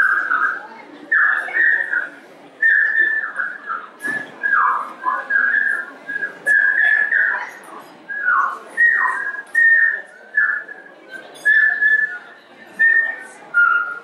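A person whistling bird-like calls: a run of short high chirps, many of them falling in pitch, about two a second.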